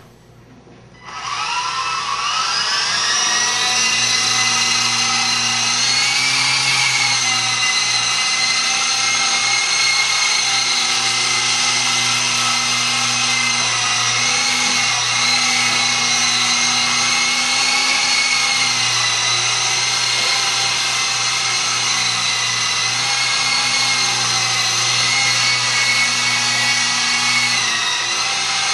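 FMA Direct Dragonfly 5 micro electric RC helicopter in flight: its electric motors and spinning rotors make a high, steady whine. It starts suddenly about a second in and rises in pitch as the rotors spin up, then holds with small shifts in pitch.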